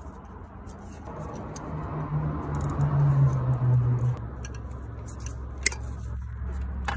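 Gloved hands fitting a zip tie around rubber vacuum hoses on a boost control solenoid: light clicks and rustles. Under them runs a low hum that swells for a couple of seconds and drops off about four seconds in.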